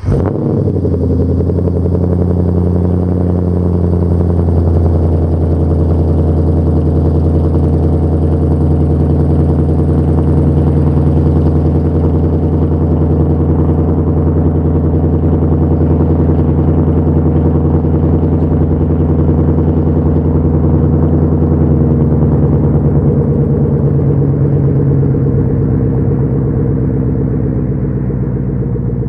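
2011 Mustang GT's 5.0-litre Coyote V8 through its stock exhaust with the mufflers deleted, catching and flaring at start-up, then settling within the first second into a loud, steady idle. The idle drops a little about twenty-two seconds in.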